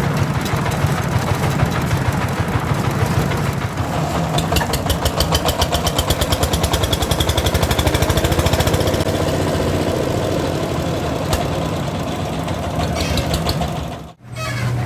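Small engine of concrete-pouring machinery running steadily, with a fast, even knocking rhythm from about 4 to 9 seconds in. Near the end the sound cuts out for a moment, then comes back as a steadier hum.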